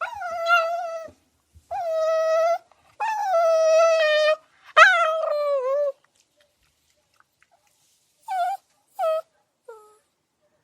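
Dog whining: four long, high whines, then after a pause of about two seconds three short ones, the last falling in pitch.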